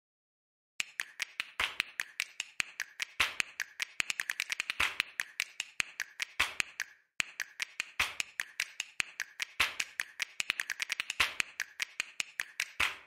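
A rapid, irregular run of sharp clicks or taps, several a second, with a short pause about seven seconds in.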